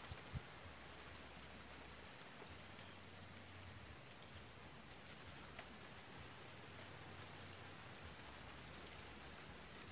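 Near silence: a faint, even outdoor hiss with brief high chirps about once a second, and a sharp click near the start.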